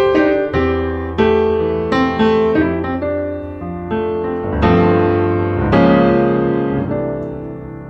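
Background piano music: gentle chords and single notes, each struck and then fading away.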